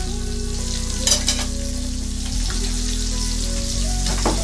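Bilong-bilong fish frying in hot oil in a pan: a steady sizzle with sharp crackles about a second in and again near the end. Background music with sustained low notes plays underneath.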